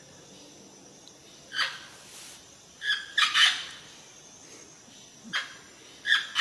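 An animal giving short, sharp calls, singly and in quick pairs, at irregular intervals.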